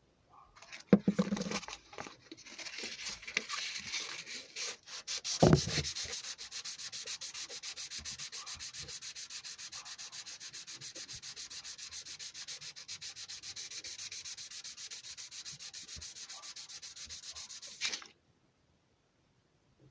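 Sandpaper rubbed back and forth on the steel blank of a lockpick cut from a kitchen knife, smoothing it after the bench grinder. There are a couple of knocks early on, then fast, even strokes of about five a second that stop suddenly near the end.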